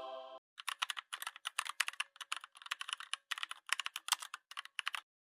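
Keyboard typing: quick, irregular runs of clicks for about four seconds, then it stops. A music track cuts off just before the typing starts.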